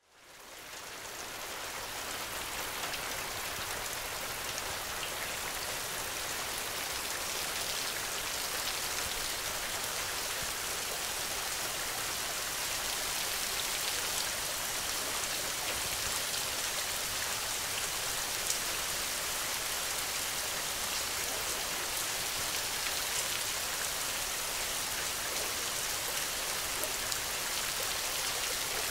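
Steady rain, a dense even hiss with fine pattering drops, fading up from silence over the first couple of seconds.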